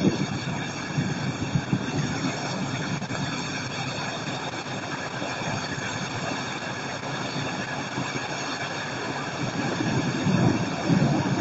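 Steady rushing noise of a night thunderstorm with a low rumble of distant thunder that swells louder about ten seconds in.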